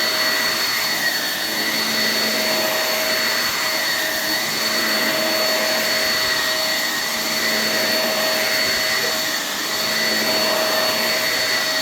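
Shark Navigator NV22L upright vacuum running with both its suction motor and its electric brush roll switched on: a steady rush of air with a constant whine on top.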